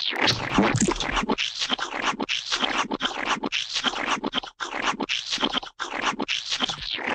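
Repeated scraping or scratching strokes, about two a second, with short gaps between them.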